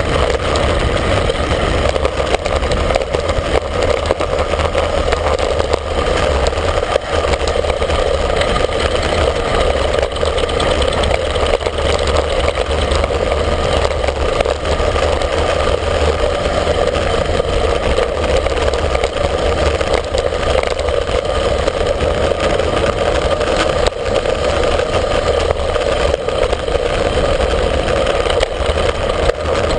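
Wind rushing over a handlebar-mounted camera's microphone on a road bike descending at high speed: a loud, steady roar with a low rumble.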